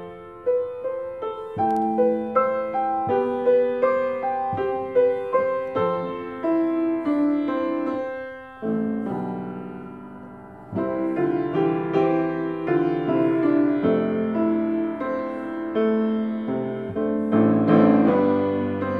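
Solo grand piano playing chords and melody, each note struck and then fading. About nine seconds in, a held chord dies away before the playing picks up again, growing louder near the end.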